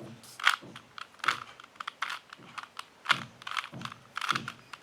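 2x2 Rubik's Cube layers being twisted by hand, an irregular string of sharp plastic clicks and clacks, a few of them louder.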